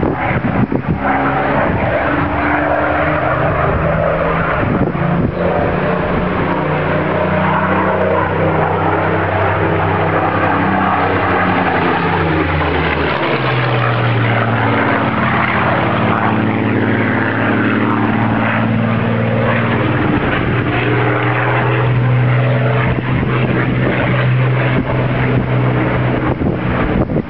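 Supermarine Spitfire's piston engine droning as the fighter flies overhead. Its note steps down about halfway through, then falls in pitch as the plane sweeps past.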